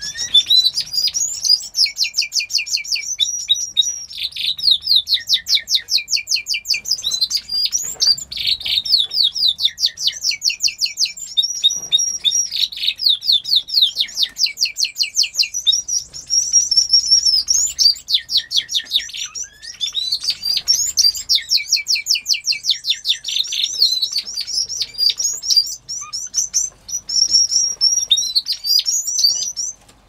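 Aviary canaries and finches singing: a near-continuous song of fast rolling trills and chirps, with only short breaks.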